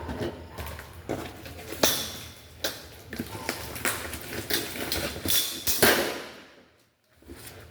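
Metal rack parts and their packaging being handled during unboxing: irregular clinks and knocks of metal pieces with rustling of wrapping, the sharpest knocks about two seconds in and again near six seconds.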